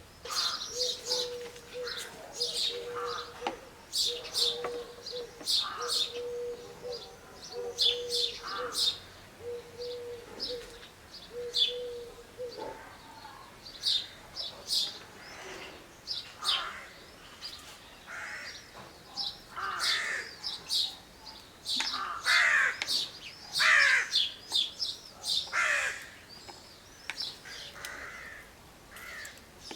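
Birds calling: many short, high chirps throughout, with louder, harsher calls for several seconds past the middle. For the first dozen seconds a low, even note repeats about once a second.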